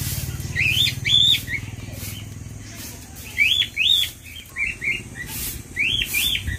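Guinea pigs wheeking: short, high, squeaky whistles that rise and fall, mostly in quick pairs, repeated about every second or two.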